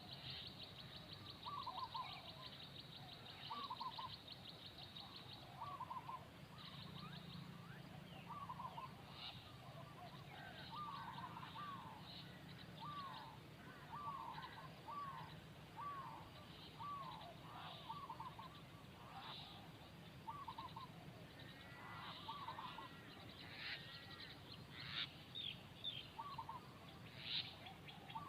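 Faint outdoor birdsong: many short, arched call notes repeating every second or two, with a rapid high trill over the first few seconds and scattered high chirps near the end.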